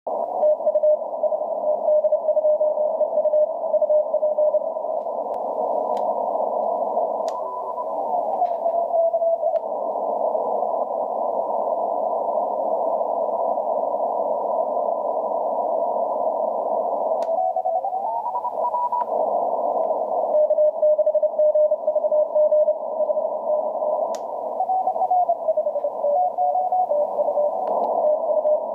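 Morse code (CW) signal of the 3D2EU DXpedition station received on the 30-metre amateur band: a keyed tone near 600 Hz over the receiver's band hiss. A few times other tones slide in pitch as the receiver is tuned across the band.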